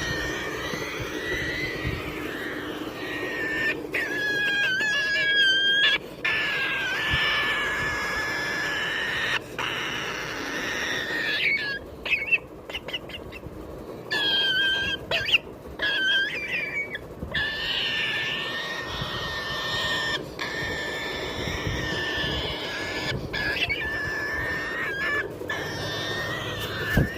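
Triton cockatoo calling in long, drawn-out, wavering notes, broken by short pauses every few seconds.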